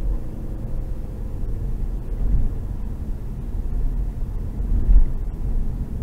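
Steady low rumble of engine and tyre noise inside a Hyundai i30's cabin at highway speed, with a short louder thump near the end.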